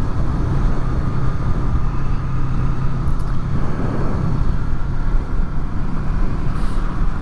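Honda VFR800's V4 engine running at a steady cruise with wind and road noise, picked up by helmet microphones under furry windshields. The engine note wavers slightly after about four seconds.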